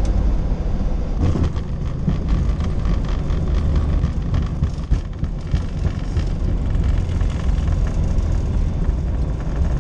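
Cockpit noise of a Boeing 737-800 on its landing rollout: a loud, steady low rumble from the engines and the wheels on the runway, with scattered rattles through the middle.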